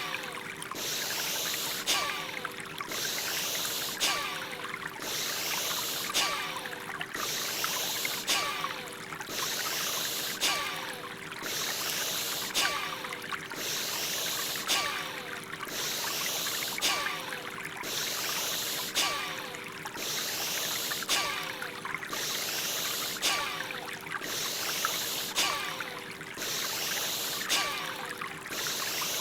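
Forceful rhythmic breathing for Bhastrika (bellows breath), a hissing inhale and exhale repeating evenly about every two seconds. It sits over a background of flowing water with a steady low drone.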